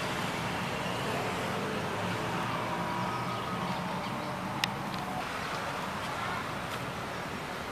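Steady outdoor background noise with a low hum, and one sharp click a little past the middle.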